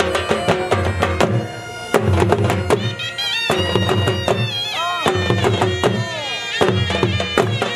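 Balochi folk dance music: a drum beating a quick rhythm under a bending melody line and a steady drone. The drumming breaks off briefly about one and a half seconds in, then comes back.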